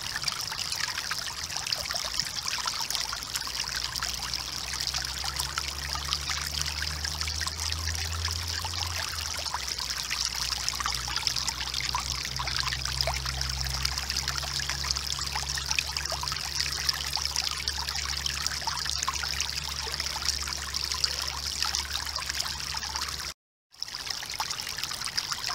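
Steady running-water sound like a trickling stream, an even crackling rush with faint low tones underneath. It drops out for a moment near the end.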